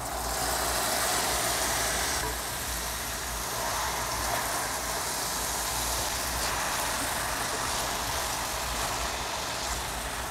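Raw chicken liver frying in hot coconut oil with sliced onions: a loud sizzle that jumps up as the liver goes into the pan, easing slightly after a couple of seconds, then holding steady.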